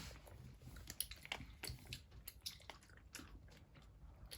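Someone chewing gummy candy: faint, scattered wet mouth clicks.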